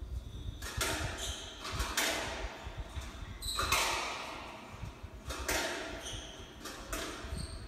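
Squash doubles rally heard through a TV speaker. Shoes give short squeaks on the wooden court floor, and the ball knocks sharply at irregular moments, echoing in the court.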